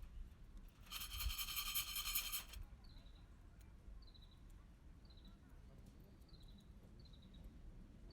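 Short high chirps repeating about once a second, likely a small bird, with a loud, evenly pulsed buzzing trill lasting about a second and a half from about a second in.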